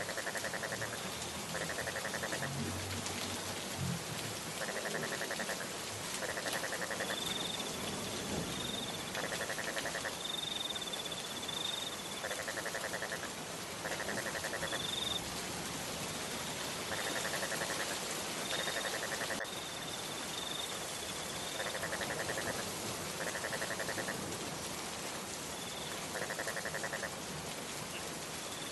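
Steady rain falling, with an animal calling in rapid pulsed trills, mostly two in a row, repeating about every four to five seconds. Short high chirps come now and then.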